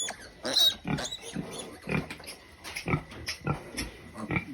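Young female pig giving a rapid series of short grunts, about three a second.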